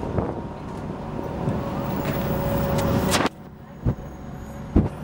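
City bus engine running with road and traffic noise, swelling slightly, with a thin steady whine over the last second or so. About three seconds in it cuts off suddenly to a quieter bus rumble with two sharp knocks.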